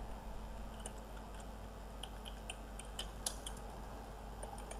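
Computer keyboard keys clicking lightly in a short, irregular run of keystrokes, over a faint low hum.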